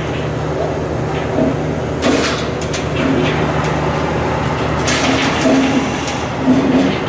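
A steady low mechanical hum, with intermittent knocks and rattles.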